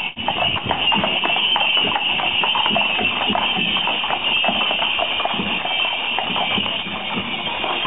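Music playing, with the clop of horses' hooves on the street.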